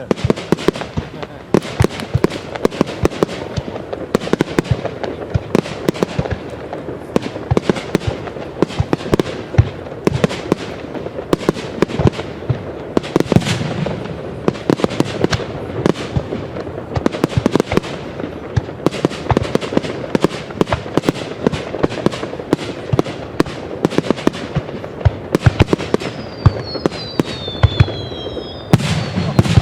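Fireworks display: a dense, continuous barrage of sharp bangs and crackling reports. Near the end several whistles fall in pitch over the bangs.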